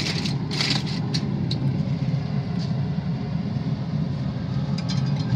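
Steady low hum of a running pellet grill's fan, with aluminium foil crinkling a few times in the first second or so as it is pulled open.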